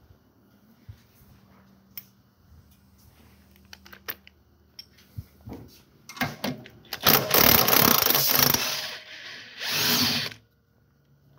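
DeWalt cordless impact driver with a socket running out the 14 mm bolts that hold the steering knuckle, in two runs: a longer one of about three seconds starting about six seconds in, then a shorter one a second later. Light clicks and knocks of tool handling come before.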